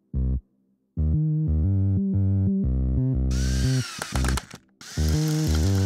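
Synthesizer background music in short rhythmic chords, dropping out briefly a few times. A DeWalt cordless drill whirs over it about three seconds in and again near the end as it drives screws, its pitch rising and falling.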